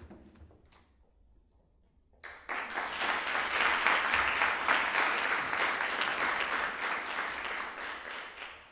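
Audience applauding: dense clapping that starts suddenly about two seconds in, peaks mid-way and dies away near the end, with a few faint knocks before it.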